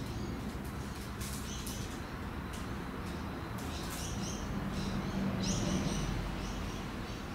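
Trading cards being handled and sorted: short crisp clicks and rustles of card stock as cards are shuffled and set down, over a steady low rumble.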